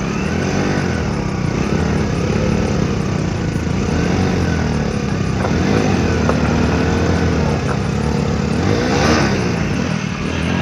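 Two small single-cylinder Hero commuter motorcycles, a Passion Pro and an HF Deluxe, revving against each other while pulling on a tow rope: the engines run under heavy load, their pitch rising and falling over and over, with the loudest, harshest surge about nine seconds in.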